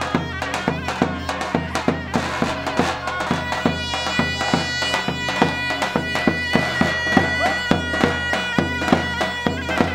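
Turkish folk dance music: a shrill reedy wind melody over a steady drumbeat, the wind instrument holding one long high note from about a third of the way in.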